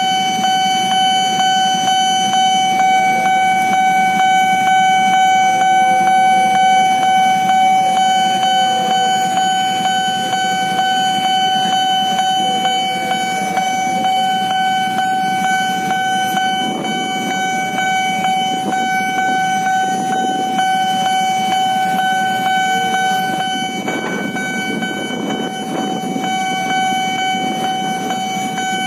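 Railway level-crossing alarm sounding one steady, unbroken electronic tone while the crossing is closed, over the rumble of idling motorcycle and car engines; the rumble grows rougher in the second half.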